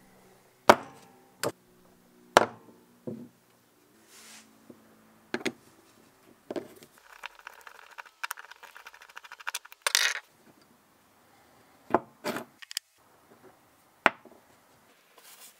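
Vintage Craftsman 1/4-inch ratchet and steel tools knocking and clinking on a wooden workbench as the ratchet is taken apart, with about a dozen sharp knocks. In the middle comes a couple of seconds of quick, fine ticking while a screwdriver turns out the screw in the ratchet head.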